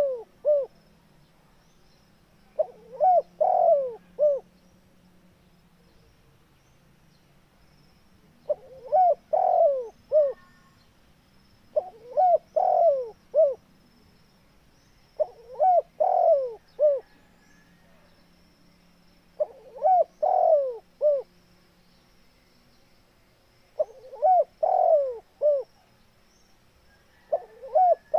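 Spotted dove cooing: about seven phrases, each a run of several short, bending coos, repeated every three to four seconds with short pauses between.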